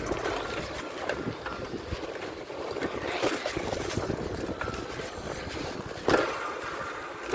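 Oxygen mountain bike rolling along a paved lane: tyre noise with many small rattles and clicks from the bike, and a sharper knock about six seconds in.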